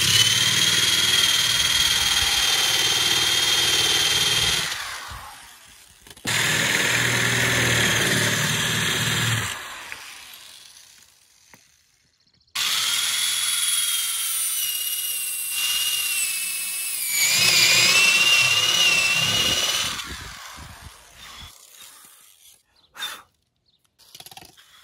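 Corded electric drill with a spade bit boring holes through a plywood subfloor sheet, in three runs: about five seconds, then three, then a longer seven-second run whose whine wavers in pitch as the bit cuts. Between runs the motor winds down.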